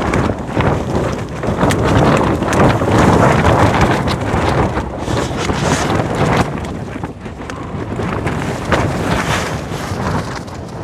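Extreme gusting wind battering a Fjallraven Abisko Lite 1 tunnel tent, its fabric flapping and snapping over a constant loud rush of wind on the microphone. The gusts ease briefly about seven seconds in, then build again.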